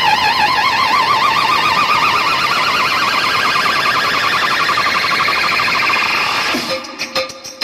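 A warbling, siren-like electronic tone with a fast wobble, slowly rising in pitch, played loud through a DJ sound system during a sound check. Near the end it cuts off into a choppy electronic beat of sharp clicks.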